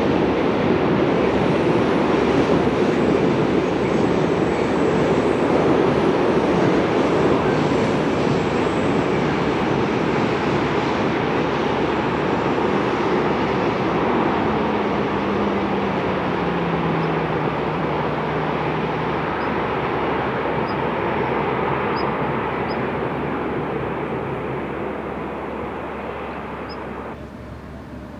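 Long electric-hauled freight train rolling along the mountain line: a steady rumble of many wagons' wheels on the rails. About halfway through, a low hum slides down in pitch. The sound drops off abruptly near the end.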